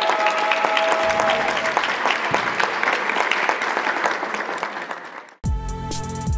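A small group of basketball players and coaches clapping their hands, thinning and fading out. About five and a half seconds in, music with a beat starts abruptly.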